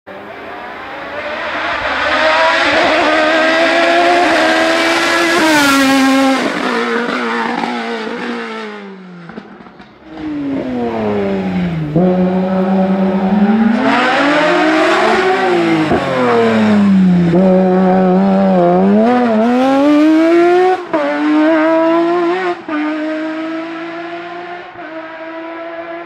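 Race car engine at full throttle, revs climbing and then dropping sharply again and again as it shifts gears and brakes for corners. The sound fades and breaks off about ten seconds in, and a second run starts with the same rise and fall of revs.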